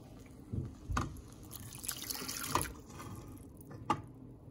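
Chicken broth being poured into a pan of thick flour-and-milk white sauce, a splashing pour heaviest in the middle, with a few sharp knocks of the spatula against the pan.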